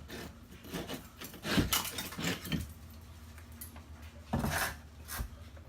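Loosened bricks and broken mortar scraping and knocking against each other as they are worked free. There are a few irregular scrapes and clunks, the loudest about two seconds in and again about four and a half seconds in.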